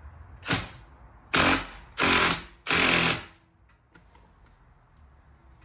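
A power tool, most likely an impact wrench, runs in four short bursts, tightening the steering wheel's retaining nut onto the column. The first burst is brief, and the last three are longer and louder.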